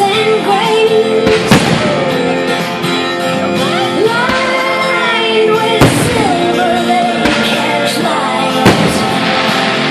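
A song with a singing voice and guitar plays loudly, and sharp firework bangs cut through it three times.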